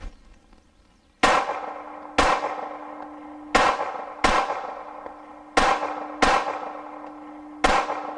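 Glock 42 .380 pistol firing seven shots at a measured pace, in loose pairs, each shot followed by a steel target ringing with a steady tone.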